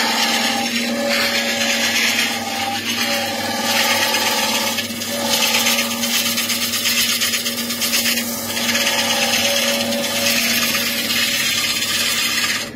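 Wood lathe running with a steady motor hum while a bowl gouge cuts into a large spinning wooden bowl blank. The shavings tearing off the tool make a loud hiss that swells and eases over several passes. It drops away right at the end.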